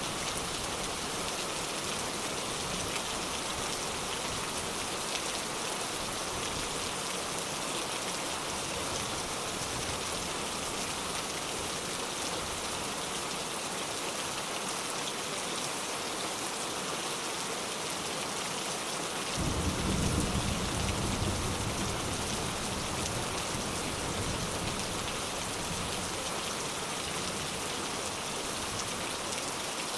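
Steady rain falling, an even hiss of drops. About two-thirds of the way through, a low roll of thunder comes in suddenly, swells for a couple of seconds, then rumbles on more faintly.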